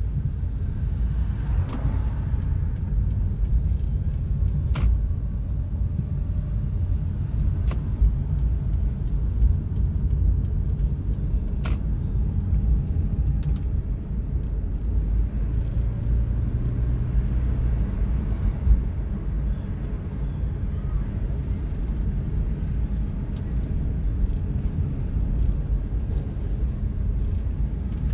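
Car interior road noise while driving: a steady low rumble of engine and tyres, heard from inside the cabin, with a few sharp clicks now and then.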